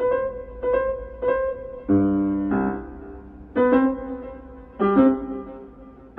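Background piano music: a repeated note struck about every half second, then a few slow chords that ring out and fade.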